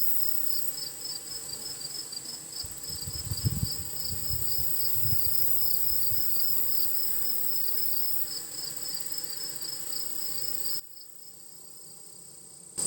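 Honeybees buzzing at a hive entrance, with louder close buzzes a few seconds in, over insects chirping steadily about three times a second. Near the end the sound drops sharply and stays quieter for about two seconds.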